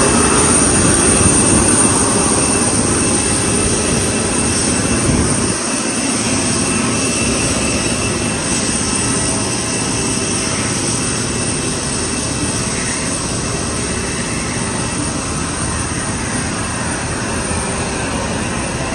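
Steady jet aircraft noise on an airport apron: a continuous rumble under a thin high whine, easing off a little over the first few seconds.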